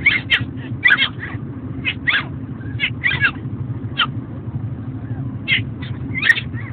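Chihuahua puppies fussing: short, high-pitched whimpers and squeaks, some sliding in pitch, coming irregularly about two a second, over a steady low hum.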